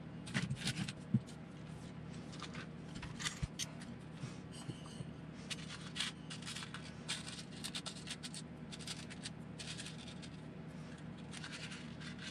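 Light clicks, taps and scrapes of hands moving plastic and metal RC buggy chassis parts, small screws and a paper instruction sheet around a workbench, over a faint steady hum.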